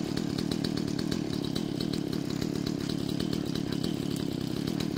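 Two-stroke chainsaw idling steadily, set down on the ground with its chain brake locked.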